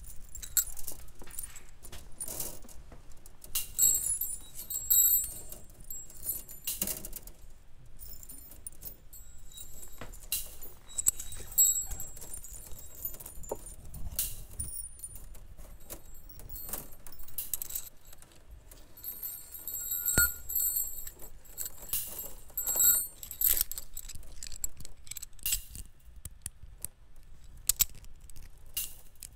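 Thin metal wires of a wire sphere sculpture clinking and jangling against each other as they are pushed and brushed by hand, in irregular clusters of sharp clicks with brief high ringing tones.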